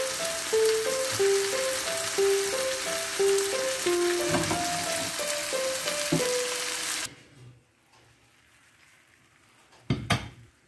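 Pork tenderloin sizzling in hot oil in a frying pan, a dense steady crackle, over gentle background music. Both cut off abruptly about seven seconds in. Near the end there is a brief double knock.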